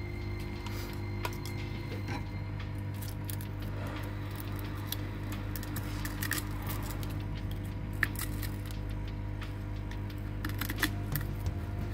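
Scattered small clicks and scrapes of a flat metal pry tool picking broken back-glass fragments and adhesive off an iPhone's metal housing, over a steady low hum.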